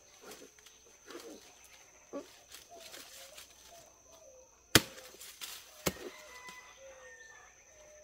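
Machete chopping into a banana plant: two sharp strokes about a second apart, the first the loudest, with rustling of leaves and stalks around them.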